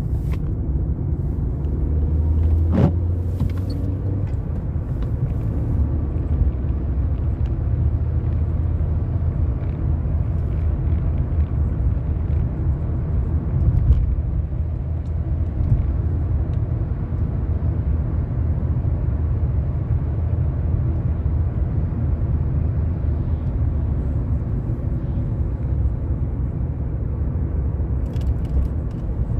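A car being driven: a steady low rumble of engine and road noise, with scattered faint clicks. A brief falling tone sounds about three seconds in.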